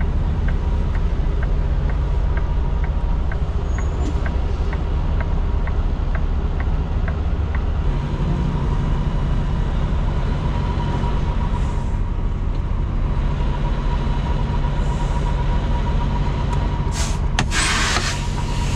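Peterbilt semi truck's diesel engine running steadily, heard inside the cab, with a light regular ticking about two a second for the first eight seconds or so. Near the end there is a short loud hiss.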